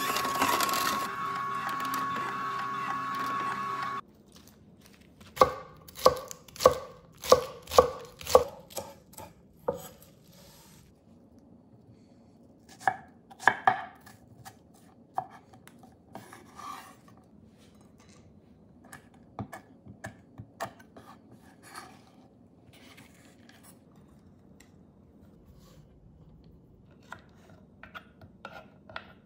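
An electric juicer's motor running with a steady whine, cutting off about four seconds in. Then a knife chops apple on a wooden cutting board: about six sharp strokes at an even pace, followed by scattered lighter taps and clicks.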